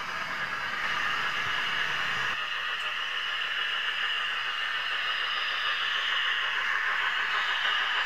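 Running noise of a OO gauge model train heard from the camera wagon riding on it: a steady, even hiss of wheels rolling on the track, with a low rumble that drops away about two and a half seconds in.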